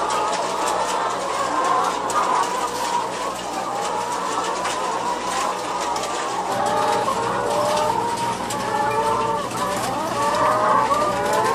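A large flock of battery-caged hens clucking all together, many short calls overlapping continuously, over a steady low hum.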